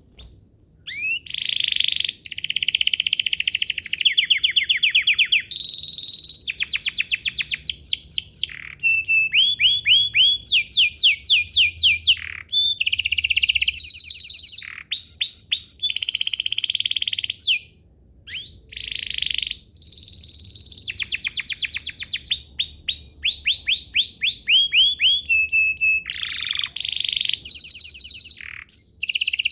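Domestic canary singing a long song made of fast trills, each a rapid run of repeated notes, switching to a new trill every second or two, with one brief pause about two-thirds of the way through.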